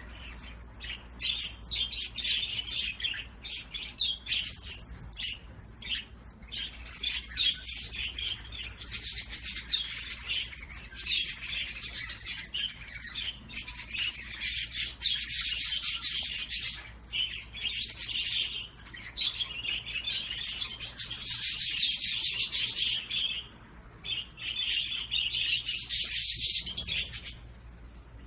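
Small cage birds chirping and twittering, with bursts of rapid high chatter that swell and fade every few seconds.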